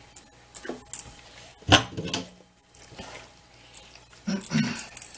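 A puppy moving about close to the microphone, with light metallic jingling clicks and one loud sharp knock a little under two seconds in, then a brief low vocal sound near the end.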